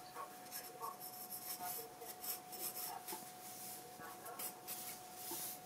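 Graphite pencil sketching on sketchpad paper: a run of short, irregular scratching strokes.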